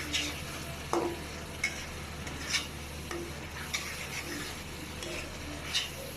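Onion and spice paste frying in oil in a kadai, a steady sizzle, stirred with short scraping strokes about once a second.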